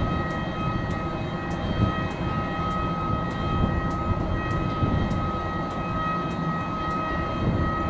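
Steady whine of a jet airliner on the apron: one constant high tone with fainter tones above it, over an uneven low rumble.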